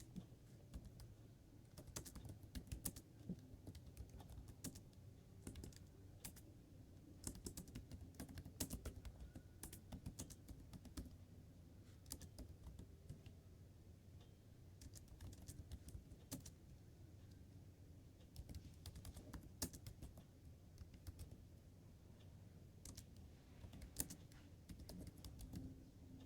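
Faint typing on a computer keyboard: irregular runs of key clicks over a low steady hum.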